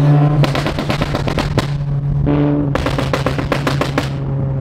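Car engine holding a steady drone while the exhaust pops and crackles in two rapid strings of sharp bangs, each lasting about a second.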